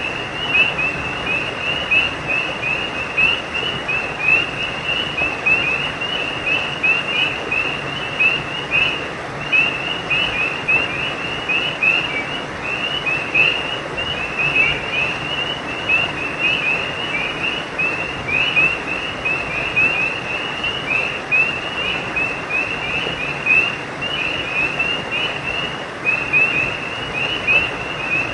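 Chorus of frogs calling at a creek at night: many short, high chirping calls overlapping without a break, over a steady background hiss.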